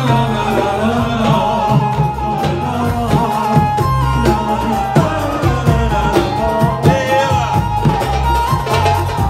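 Live Arabic music, instrumental: an electronic keyboard plays an ornamented melody with held notes over a bass line, while a darbuka (goblet drum) keeps the rhythm.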